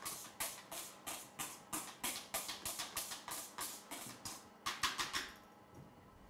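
Wire whisk folding a creamy parfait mixture in a stainless steel bowl, its wires scraping and tapping the bowl in steady strokes about three times a second. A quick flurry of strokes comes just before they stop, about five seconds in.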